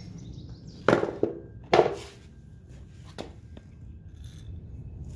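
Two sharp clanks with a brief ring, just under a second apart, then a lighter click: hand tools or bolts being handled and set down while the bike is taken apart.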